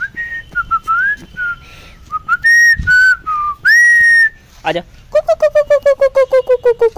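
A person whistling to call puppies: a string of short whistled notes that slide up and down, ending in one longer held note. Then, near the end, a fast run of short calls, about six a second, falling in pitch.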